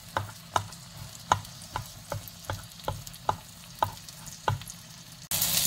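Plastic spatula tapping and pressing an eggplant omelette in a nonstick frying pan, about two sharp taps a second over a faint sizzle of oil. Near the end, loud sizzling of frying oil cuts in suddenly.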